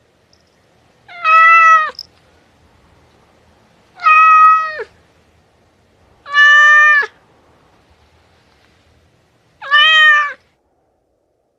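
A domestic cat meowing four times, each meow under a second long, spaced a few seconds apart and falling slightly in pitch at the end.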